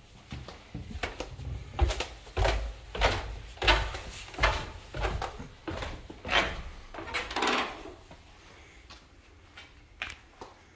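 Footsteps going down wooden stairs, a heavy thud about every two-thirds of a second, then softer, fainter steps on a concrete floor near the end.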